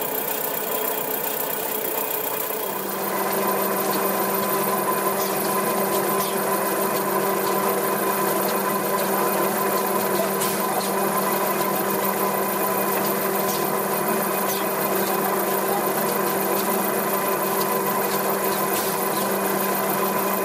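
YD-PL200C non-stop toilet roll and kitchen towel rewinder line running: a steady mechanical whir with a constant hum, growing louder about two and a half seconds in, with a few faint sharp clicks now and then.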